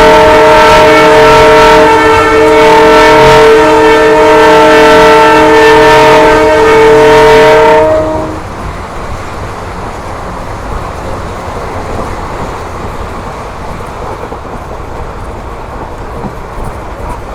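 A WDP4D diesel locomotive's air horn sounding one long, loud blast of several notes, which cuts off about eight seconds in. It is followed by the steady running noise of the train on the rails.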